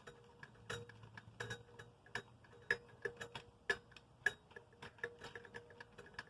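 Irregular metallic clicks and light taps, a few a second, each with a short ring, from the blade screws being worked out of a ceiling fan.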